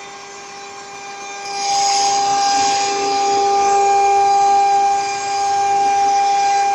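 BMG-1325 CNC router's spindle running with a steady high whine. A loud hiss of the bit cutting sheet material comes in about a second and a half in and holds steady.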